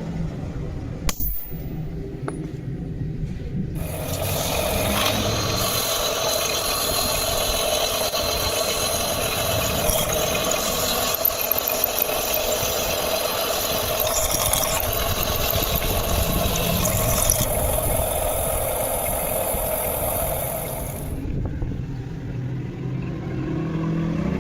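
An electric power tool runs steadily for about seventeen seconds, with a constant hum and a bright hiss. It starts about four seconds in and cuts off near the end.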